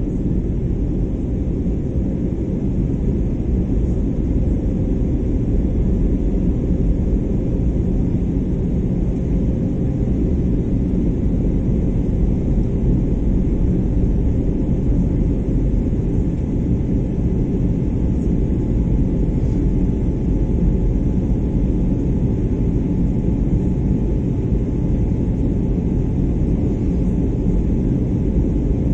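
Airliner's underwing turbofan jet engine at climb power, heard inside the cabin: a steady, loud low rumble with a faint steady whine above it.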